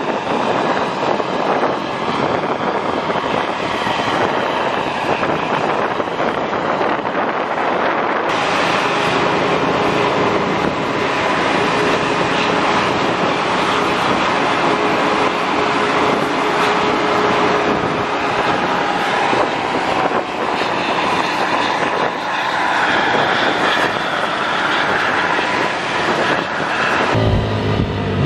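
Mercedes-Benz bus's diesel engine running as the bus drives, heard from close behind it as a loud, steady mechanical noise. About a second before the end the sound changes abruptly to a deeper engine drone.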